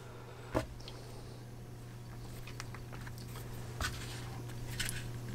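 Quiet bench handling: a sharp tap about half a second in and a few fainter clicks later as cleaning tools and the pistol frame are picked up and set down on a rubber cleaning mat, over a steady low room hum.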